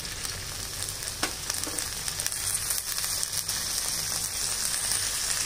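Small onions (shallots) sizzling steadily as they fry in hot oil in a kadai over medium heat, with one light tap about a second in.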